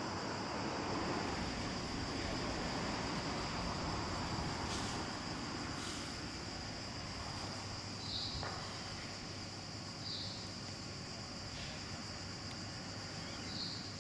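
Outdoor summer ambience: insects chirring steadily over a soft, even background hiss, with a few short higher chirps about eight seconds in, at ten seconds and near the end.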